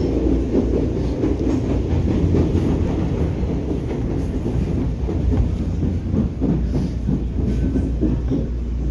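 Commuter train running along the track: a steady low rumble with wheels clattering over the rails.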